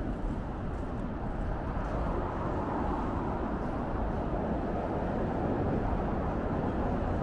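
Steady city street traffic noise: a continuous hum of passing cars.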